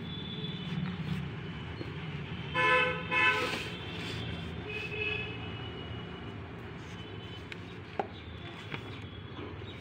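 A horn toots twice in quick succession about three seconds in, over a steady low background rumble.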